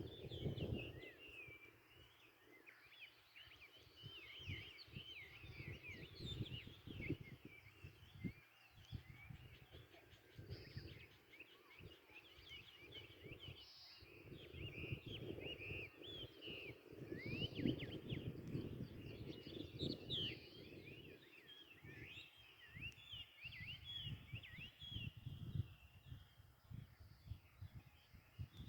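Many small songbirds chirping and twittering in a dense, continuous chorus of quick high notes, over a low rumble that swells and fades.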